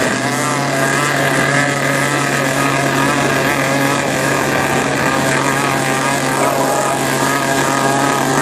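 Motorboat engine running steadily under way, a constant low drone, with wind and water rushing past the hull.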